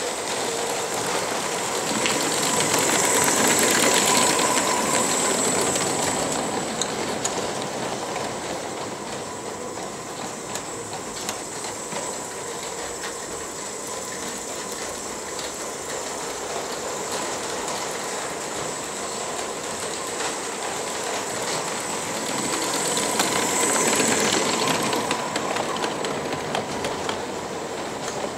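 G-scale live-steam model locomotive running with its small carriages and wagons: a steady hiss with the wheels clicking and rattling on the track. The sound swells louder twice, a few seconds in and again near the end, as the train passes close.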